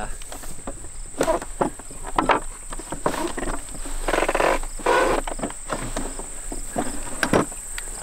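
Dry hay rustling and scraping against wood in irregular bursts as it is packed by hand into the chamber of a home-built wooden manual hay baler, over a steady high-pitched insect trill.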